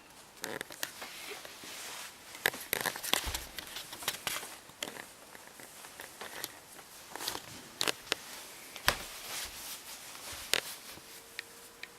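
Irregular rustling, crinkling and scratching of a sleeping bag's fabric as a cat moves about inside it, with sharp scratchy clicks. A faint steady hum comes in near the end.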